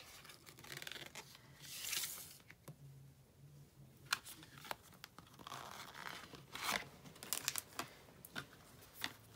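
Rustling and scraping of a thin cardboard sleeve and photo cards being handled, with several short sharp taps as cards are set down on a table.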